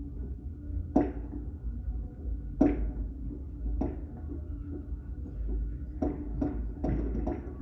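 Fireworks going off, a string of irregularly spaced bangs with a short echoing tail, several coming close together near the end, over a low rumble.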